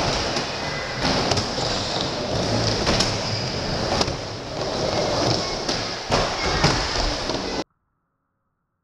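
Skateboard riding a vert ramp: a steady rumble of the wheels with repeated sharp knocks and thuds as the board meets the ramp. The sound cuts off suddenly near the end.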